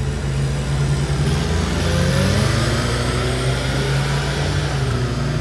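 Large forklift's engine running as the truck drives, its pitch rising a little about two seconds in.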